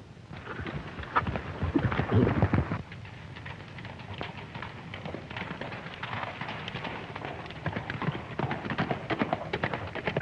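Horses' hooves galloping on open ground in an old film soundtrack: a louder burst of stamping and scuffling over the first two or three seconds, then a steady run of quick hoofbeats.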